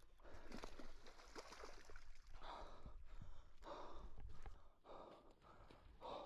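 A person breathing hard, with several heavy exhalations about a second apart, over scattered clicks and rustling.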